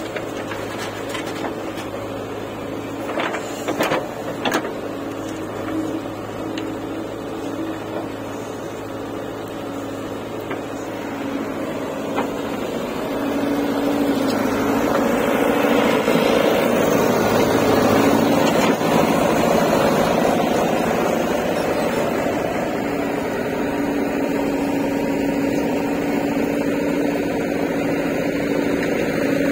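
Diesel engine of a JCB backhoe loader running steadily while the backhoe loads soil. A few knocks come about three to four seconds in. The engine grows louder from about thirteen seconds in as the arm works.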